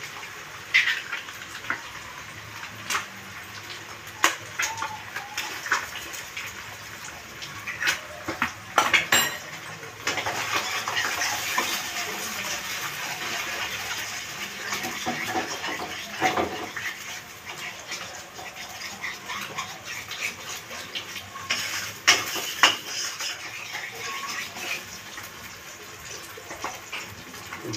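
Metal spatula clanking and scraping against a non-stick wok while egg is stir-fried, in repeated sharp knocks. A frying sizzle rises about ten seconds in.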